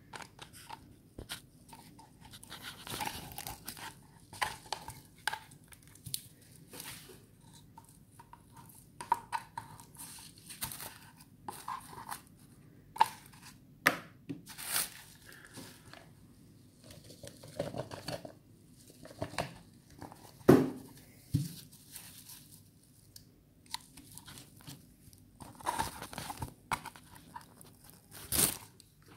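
Coconut husk being torn away: irregular tearing and crackling of the dry fibres, in short uneven bursts with pauses between.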